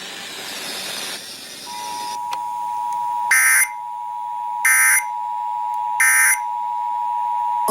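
Three short buzzy EAS end-of-message data bursts, about a second apart, closing the North Carolina monthly EAS test. Under them runs a steady two-pitch EAS attention tone, which is gone for the first couple of seconds and leaves radio hiss.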